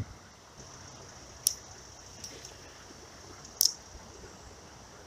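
Two sharp clicks about two seconds apart, from handling a spinning rod and reel while a lure is cast, over a faint steady hiss.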